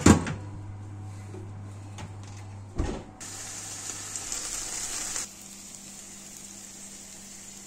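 A baking tray clatters into an oven, and the oven door thumps shut about three seconds in. Then comes a steady sizzle of sliced green peppers and red onion frying in a pan.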